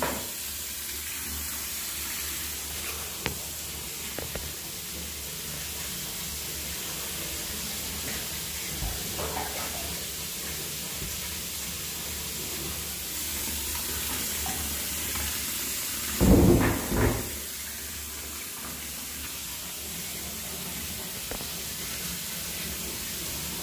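Steady hiss of water running in a shower or bath, with two short muffled bumps about sixteen seconds in.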